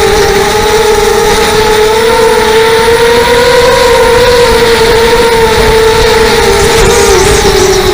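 Strong wind blowing with a loud, steady whistle that slowly wavers up and down in pitch over a rushing noise.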